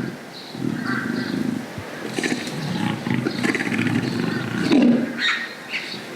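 A large cat roaring and growling in a series of rough, pulsing calls, loudest about five seconds in.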